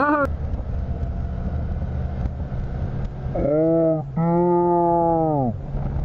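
Yamaha FZR sportbike engine under way. It runs at a low steady drone, then pulls hard about three and a half seconds in, with a brief break just after for a gear change. It pulls again and its pitch drops away about a second and a half later as the throttle comes off.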